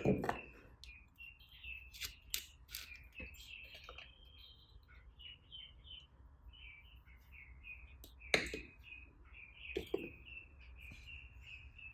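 Slime being handled by hand, giving sticky clicks and pops at irregular intervals, the loudest about eight and ten seconds in, over a run of faint high chirping squeaks.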